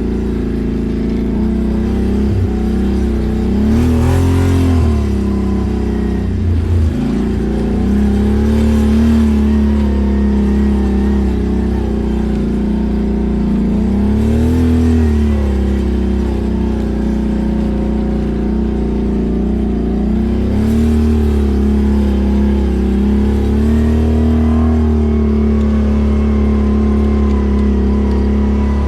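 ATV engine running while riding, its revs rising and falling every few seconds as the throttle is worked.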